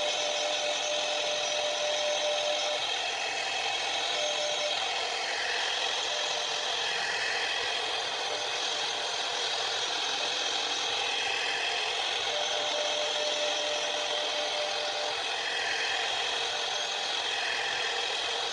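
CNC router spindle with a fine engraving bit cutting grooves into a wooden sheet: a steady high machine whine over a hiss of cutting, with a thin tone that drops in and out.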